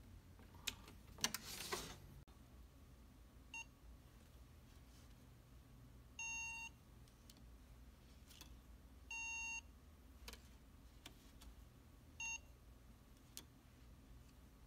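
A few sharp plastic clicks and a rustle as the cover is pressed onto the lock body. Then the hotel RFID card lock's reader beeps four times (short, long, long, short) as cards are presented to it.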